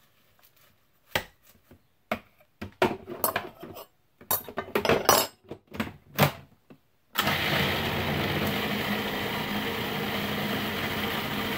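Irregular clicks and knocks as the food processor's bowl and lid are handled, then about seven seconds in the food processor's motor starts suddenly and runs steadily, blending a pesto of arugula, basil and mint.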